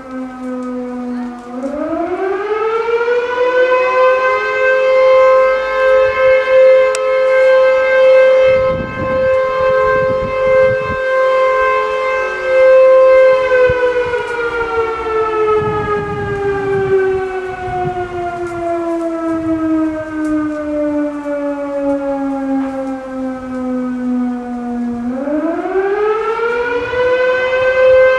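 HELIN VS6 vertical high-tone siren, a motor-driven 11-port rotor siren built around the 1930s, sounding a fire brigade alarm. After a falling tone, it winds up to a steady high wail about two seconds in, holds it for about ten seconds, winds down slowly for about ten seconds, then winds up again and holds near the end.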